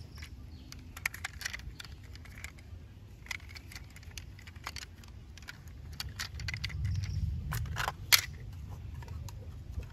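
Hard plastic toy vehicle parts being handled and fitted together: scattered light clicks and clatter, with a few louder clicks about seven to eight seconds in.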